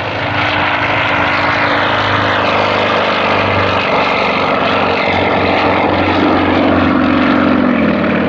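Aerobatic propeller airplane flying a display at high power, its engine and propeller making a loud, steady drone. The pitch sags slightly near the end as it passes.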